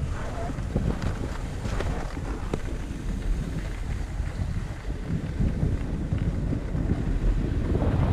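Wind rushing over the camera microphone of a skier gliding down a groomed piste, with the skis hissing and scraping on the corduroy snow; the rush grows a little louder near the end as the skier picks up speed.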